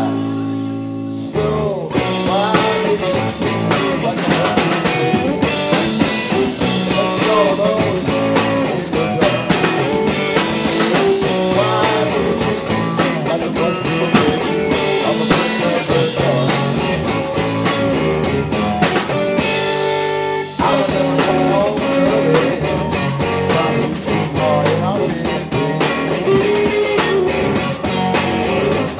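Live blues-rock trio playing: electric guitar through an amplifier, bass and drum kit. The band hangs on a held chord at the start and again briefly about twenty seconds in, then comes crashing back in.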